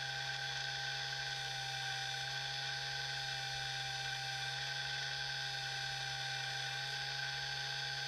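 HUDY tire truer's small electric motor running at 5 volts, turning a 1:24 slot car's rear wheel with a steady, even whine and a low hum.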